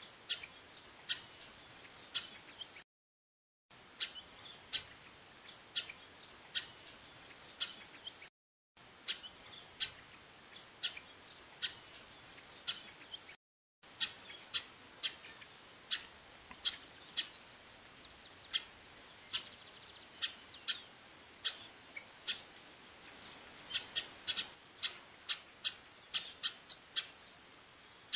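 Female chestnut-capped blackbird giving short, sharp call notes over and over, about one or two a second, coming faster near the end. A steady high insect trill runs behind them. The calls drop out into brief silence three times in the first half.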